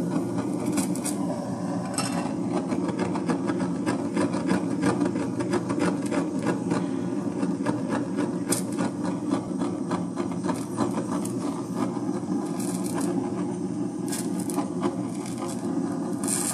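Handheld gas blowtorch flame burning steadily as it sears liquor-brushed mullet roe, with dense crackling ticks throughout.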